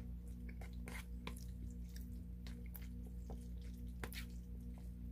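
Eating sounds: chewing and mouth smacks, with a fork clicking against a foam takeout tray, as scattered short clicks. Under them runs a steady low hum with faint steady tones, one of which pulses evenly.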